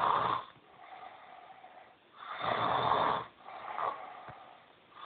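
Snoring: loud snores about every two and a half seconds, each lasting about a second, with a softer breath sound between them.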